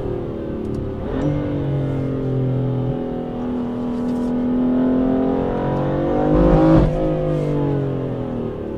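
Twin-turbocharged six-cylinder sports car engine and exhaust under acceleration, its pitch rising and falling with the revs. The loudest moment comes about two-thirds through, then the pitch drops away sharply.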